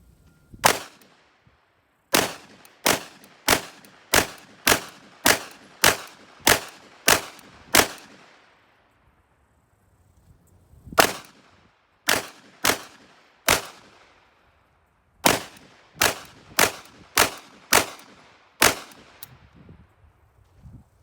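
Cobray M-11/9 9mm pistol firing about twenty single shots, evenly spaced at a little under two a second, in three strings with short pauses of a couple of seconds between them.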